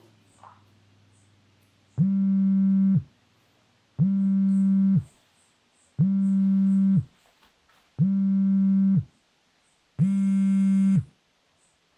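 Mobile phone vibrating with an incoming call: five low buzzes, each about a second long, one every two seconds. The last buzz sounds harsher and more rattly than the others.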